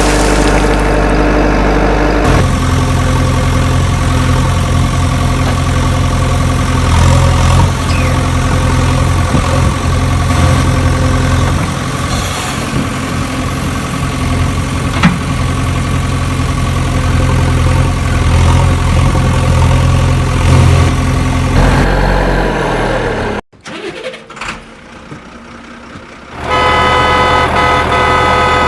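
Vehicle engine running steadily, its pitch changing abruptly a couple of times as if separate engine recordings were cut together. The sound drops away briefly near the end, then a higher-pitched steady engine tone comes in.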